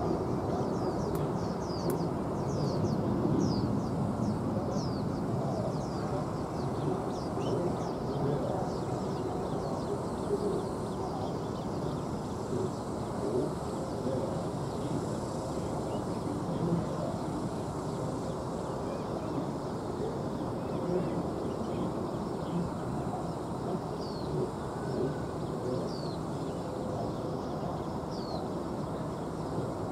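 Small birds chirping in short falling chirps, several in the first few seconds and a few more near the end, over a steady low rumble of distant airport noise.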